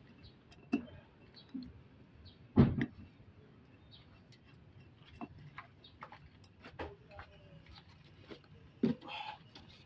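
Screwdriver clicking and scraping against the metal housing and internal parts of a truck air dryer as it is taken apart: scattered light metal clicks, with a loud knock about two and a half seconds in and another near the end.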